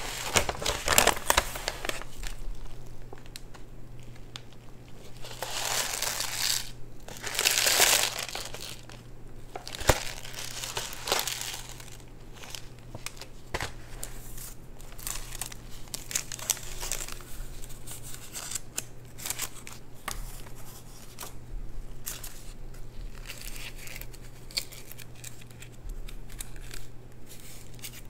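Food wrappers and packaging being crinkled and torn open by hand: irregular crackling and rustling, with louder rustles about five to six and seven to eight seconds in. A faint steady hum runs underneath.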